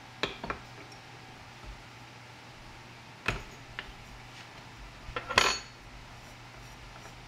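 Metal clinks and clanks of a wrench on the nut of an old BMW M5 fuel filter as it is unscrewed from its fuel pressure regulator assembly held in a bench vise. A few single clanks come early and midway, and a quick cluster about five seconds in is the loudest.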